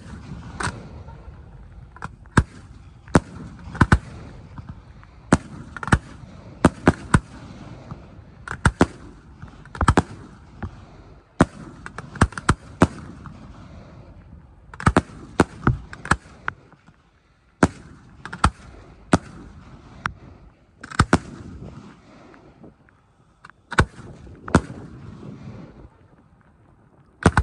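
Aerial firework shells bursting in a rapid, irregular string of sharp bangs, several close together at a time, with a few short lulls.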